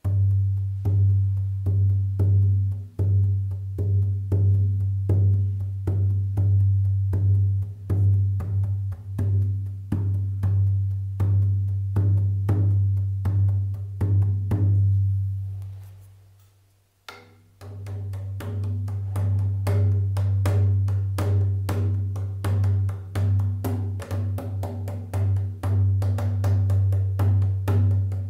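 A 12-inch hide-headed shaman frame drum struck in a steady beat, each stroke giving a deep low boom that rings on under the next. The sound dies away for a second or two about halfway through, then the beating resumes, somewhat faster.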